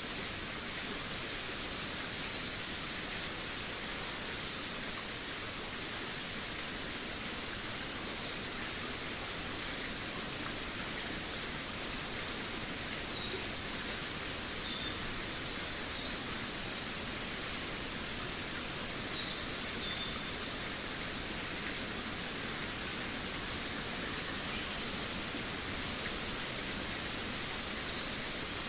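Forest ambience: a steady rushing hiss, with small birds giving short, high chirps every second or two.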